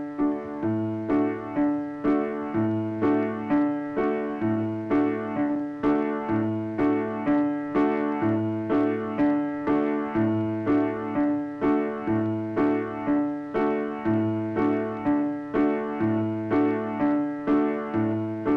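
Repetitive keyboard music, piano-like, with a figure of notes struck about twice a second over a recurring low bass note. It starts abruptly just before and runs on without change.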